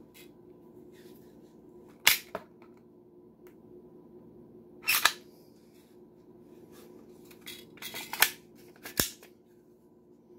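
Sharp clicks and clacks of hard plastic pistol parts and case fittings being handled, in several separate bunches, with a steady faint hum underneath.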